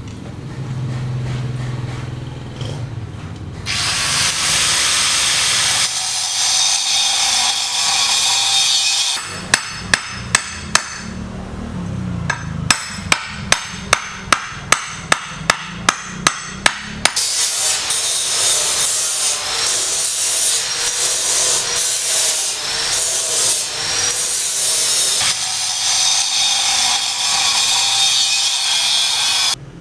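Construction work with hand tools: long stretches of steady rasping tool noise, broken in the middle by a run of sharp hammer blows at about two a second. The sounds change abruptly several times, as between cut-together clips.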